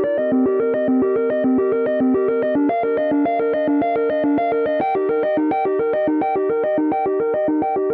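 iPhone ringtone playing: a synthesized melody of quick, evenly spaced notes in a repeating pattern that moves to new pitches a couple of times.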